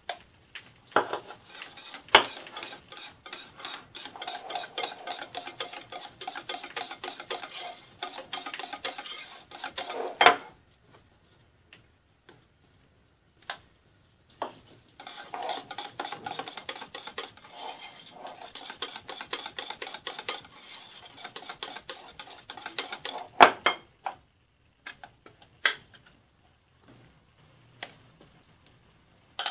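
Wire whisk beating crème anglaise and cream together in a glass bowl to make crème diplomate: two long bouts of rapid clinking strokes with a pause between. A few sharper knocks of utensils against the bowl and the steel saucepan sound between and after the bouts.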